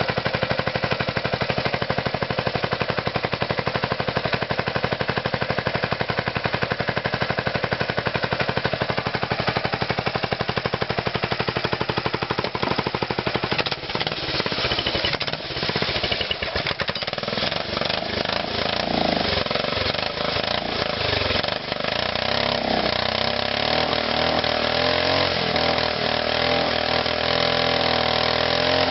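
Small single-cylinder engine fitted with an Eagle Talon turbocharger, running with a rapid pulsing exhaust note. About fourteen seconds in the note breaks and the engine speed starts rising and falling unevenly while the carburettor is being tuned.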